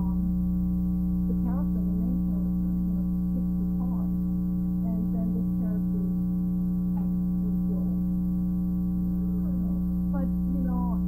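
Loud, steady electrical mains hum in the recording, with a woman talking faintly beneath it; her voice is recorded very low, so the hum is the loudest thing.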